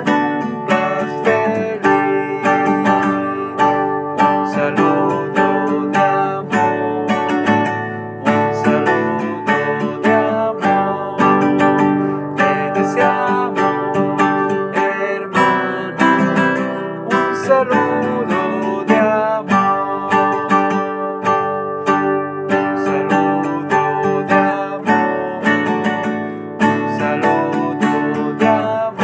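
Acoustic guitar strummed in a steady rhythm, playing a song's chord accompaniment.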